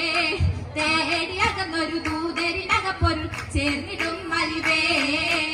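Girls singing a Mappila oppana song together into microphones over a stage PA, with a few sharp hand-claps from the dancers cutting in.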